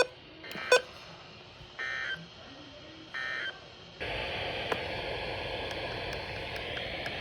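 Two sharp electronic beeps, then two short warbling data bursts about a second apart, typical of the SAME end-of-message code that closes an Emergency Alert System broadcast. About four seconds in, a hissing radio channel comes up with static.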